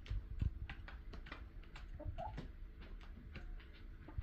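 Chickens pecking cat food from a bowl: irregular quick taps and clicks, with one short soft cluck about two seconds in.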